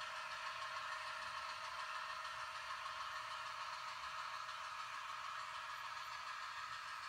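HO scale model diesel locomotive running slowly during a switching move: a steady, thin engine drone with no deep bass, fading slightly near the end.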